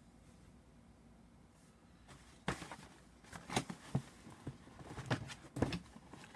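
A quiet room, then from about two and a half seconds in a run of about a dozen short, sharp knocks and clicks of hard objects being set down or handled, irregularly spaced over some three seconds.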